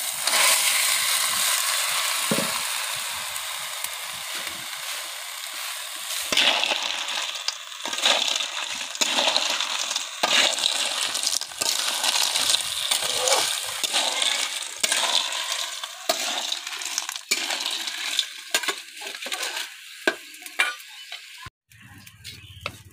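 Snails in their shells tipped into a hot iron kadai, sizzling strongly at first, then clinking and rattling as a metal spatula stirs the shells against the pan.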